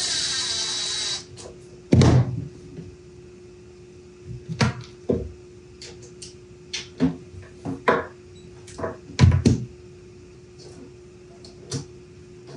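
A cordless drill runs for about a second with a steady whine, driving a screw into the underside of a plywood cabinet. Then come a loud thump and a series of knocks and clatters of wood and tools being handled, with two heavy thumps near the nine-second mark.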